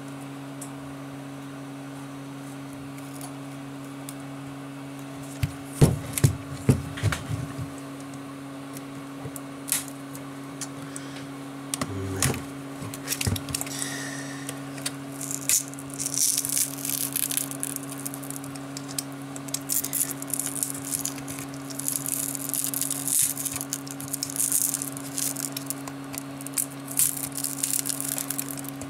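A metal pry tool working under the cracked front glass of an Asus Nexus 7 tablet: a few clusters of taps and knocks, then, from about halfway, a long run of fine crackling as the glass and its adhesive break away from the frame. A steady low hum lies under it all.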